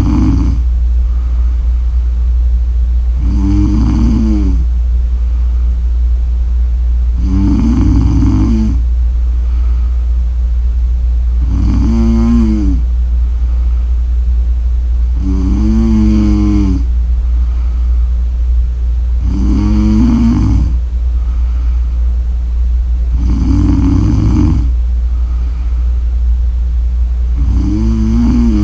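A woman snoring in her sleep: a buzzing snore about every four seconds, eight in all, each lasting about a second. A steady low hum runs underneath.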